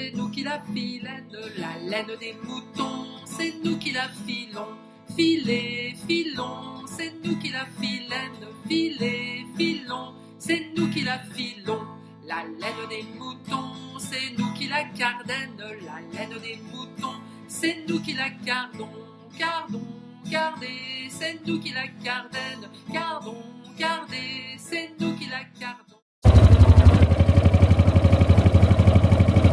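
Acoustic plucked-string music, guitar and mandolin. About 26 seconds in it cuts off abruptly and a loud, steady vintage tractor engine takes over.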